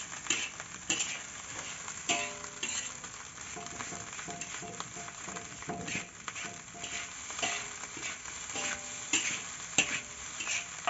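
Spatula scraping and stirring fried rice in a metal wok over the heat, in repeated uneven strokes over a light sizzle.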